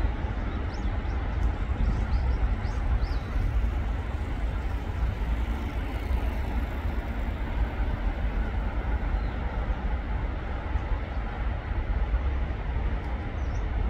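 Steady outdoor background rumble, heaviest in the low end, with a few faint high chirps in the first three seconds and again near the end.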